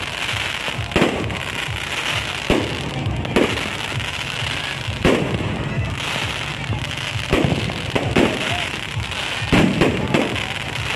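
Aerial fireworks shells bursting, a sharp bang every one to two seconds, over a continuous dense crackle from the golden crackling stars.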